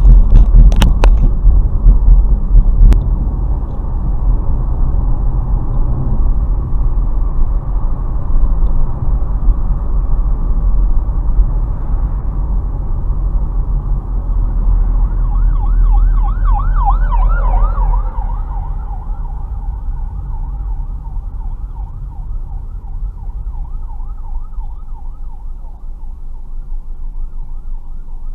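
Steady low road rumble from a moving vehicle, with a few sharp clicks near the start. About halfway in, an emergency siren's fast yelp joins, about four rises and falls a second. It is loudest for a few seconds, then carries on fainter.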